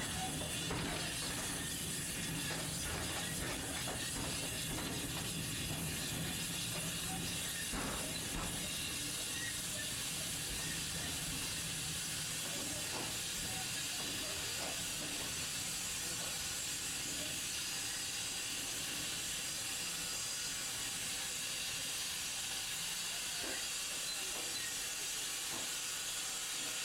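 Steady hiss and running noise of a small steam locomotive hauling an open wagon along harbourside track, with a few faint clicks.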